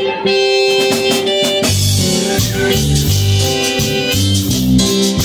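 Live Christian band starting an instrumental intro: electronic keyboards begin with sustained chords, and about two seconds in an electric bass guitar and drum kit with cymbals join for a full, rhythmic band sound.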